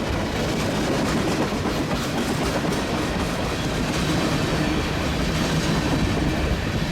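Iowa Northern freight train's cars rolling past, their steel wheels running over the rails in a steady, loud rush of noise.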